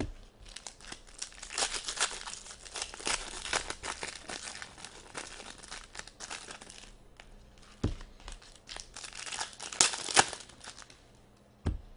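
Foil wrapper of a 2017-18 Upper Deck hockey card pack being torn open and crinkled by hand, in repeated bursts of rustling. Two soft thumps come about two-thirds of the way in and near the end.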